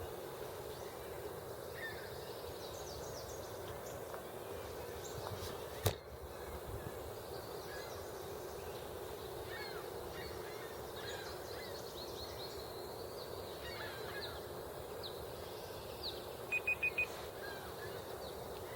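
Several wild birds calling and singing, with many short chirps and slurred notes over a steady low background hum. There is a sharp click about six seconds in and a quick run of four high pips near the end.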